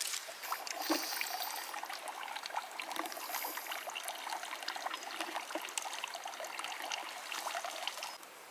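Water trickling and splashing steadily as it pours from a hose spout into a stone trough. It cuts off suddenly near the end.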